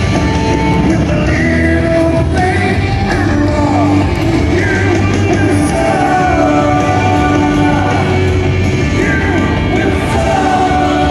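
Rock music with singing, played over outdoor public-address loudspeakers.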